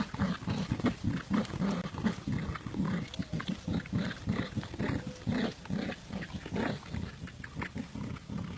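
Dogs growling in play during a tug-of-war over a toy: a rapid, rhythmic series of short low growls, about three or four a second.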